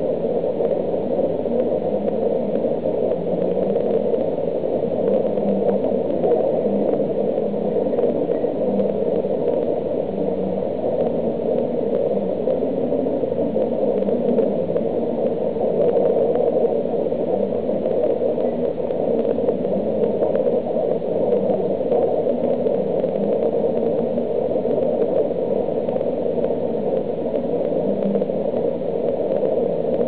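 Steady water-circulation noise of an aquarium's pumps and filtration, an even low rush with no separate events.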